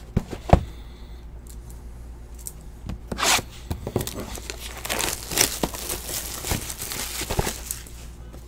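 Wrapping on a box of trading cards being torn open and crinkled, starting with a few sharp clicks and growing into a long stretch of crackly tearing over the last half.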